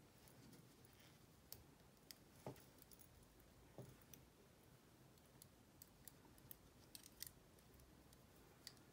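Faint, irregular clicks of 7 mm circular knitting needles tapping together as stitches are bound off, about a dozen over a few seconds.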